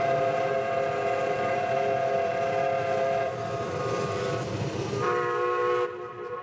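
Train whistle blowing one long chord of several tones over a hiss, the chord shifting twice. It stops near the end and the tones ring on, fading away.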